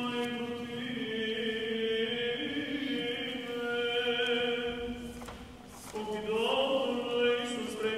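A man's solo voice chanting the Epistle reading (the Apostol) in Byzantine first tone. He holds long notes on a reciting pitch, breaks off for a breath about five seconds in, and comes back in with a rising phrase.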